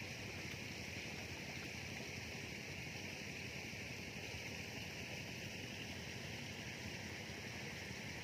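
Steady outdoor ambient hiss, even throughout, with no distinct events.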